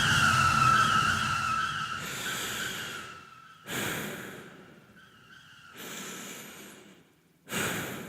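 A car's tyres screeching under sudden braking, a single squeal falling a little in pitch and fading out about three seconds in, then three heavy breaths, gasps of someone shaken by the near miss.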